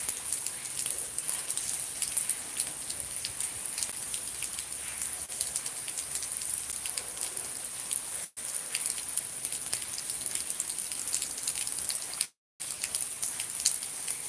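Steady rain falling, a dense hiss sprinkled with many small drop ticks. The sound dips for an instant about eight seconds in and cuts out completely for a moment near the end.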